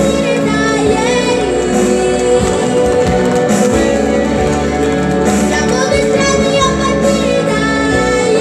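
A boy singing a song into a microphone over amplified instrumental accompaniment.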